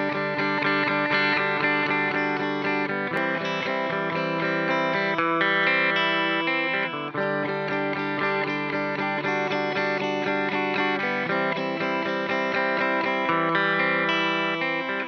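Background music led by plucked guitar, notes picked in a quick, even rhythm.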